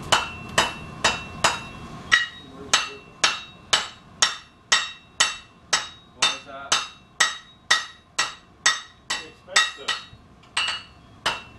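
Blacksmith's hand hammer striking hot steel on an anvil in a steady rhythm of about two blows a second, each blow with a short metallic ring.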